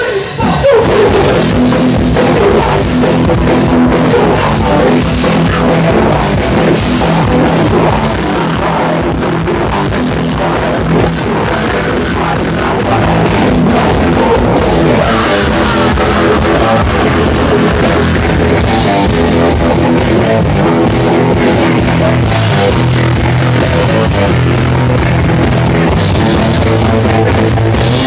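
Live rock band playing loud amplified music: drum kit, electric guitar, bass and keyboard.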